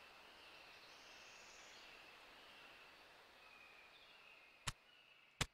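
Faint ambience, close to silence: a soft hiss with a thin, wavering high tone, then two short, sharp clicks near the end.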